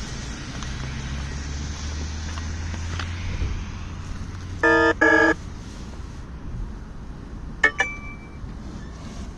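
A local train runs with a low rumble that dies away after about three seconds. A little under five seconds in it gives two short toots, followed by a couple of sharp clicks.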